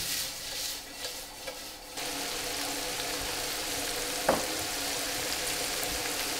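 Crumbled Italian sausage sizzling as it fries in olive oil in a pan, with a steady hum coming in about two seconds in and a single clink of a utensil a little after four seconds.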